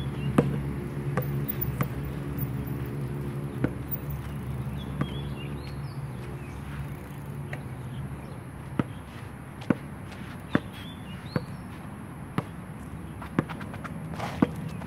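Basketball bouncing on a hard outdoor court: a few scattered bounces, then a steady dribble of about one bounce a second through the second half. A steady low hum and a few faint high chirps sit underneath.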